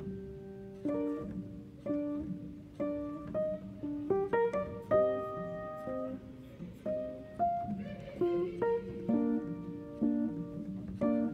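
Background music: a guitar picking a melody of separate plucked notes, each ringing out and fading.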